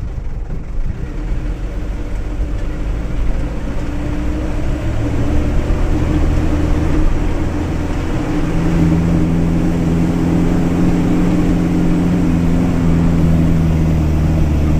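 Truck engine running steadily, heard from inside the cab, growing louder over the first few seconds with a slight change in engine pitch about eight seconds in.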